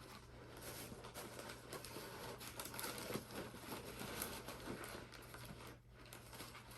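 Plant packaging rustling and crinkling as a plant is unwrapped and pulled out by hand, a steady run of small crackles that eases off briefly near the end.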